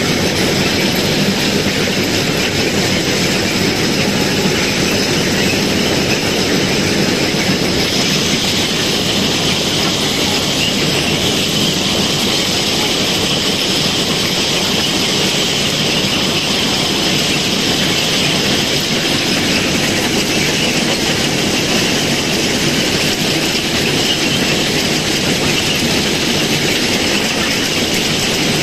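Railway ballast cleaning machine working on the track: a loud, steady, dense mechanical clatter, with crushed-stone ballast rattling as it spills from the machine's chute. A harsher, higher edge comes into the noise about eight seconds in.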